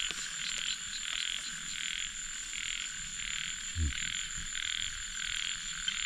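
Frogs calling in a chorus, a call repeating about every two-thirds of a second, over a steady high-pitched drone.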